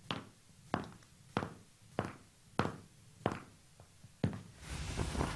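Footsteps in a small room, hard steps about one and a half to two a second walking at an even pace. Near the end a rush of noise swells up.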